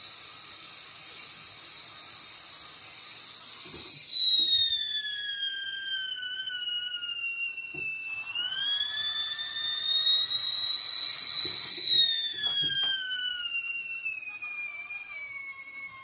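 Stovetop whistling kettle at the boil: a loud, high, steady whistle that slides down in pitch, rises again, then falls and fades near the end.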